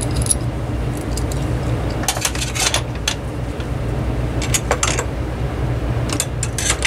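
Hand tools and small fan parts being handled and set down, giving a few separate light clinks in small clusters over a steady low hum.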